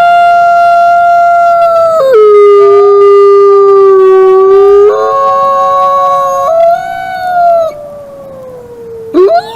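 Wolves howling: long, held howls that step down in pitch, with a second howl overlapping about halfway through and a fresh howl rising sharply near the end.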